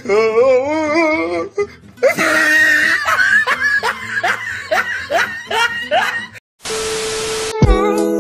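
A comedy soundtrack of laughter over music, with a wavering voice near the start and a run of short rising laughs in the middle. A short hiss comes about seven seconds in, and steady music starts just before the end.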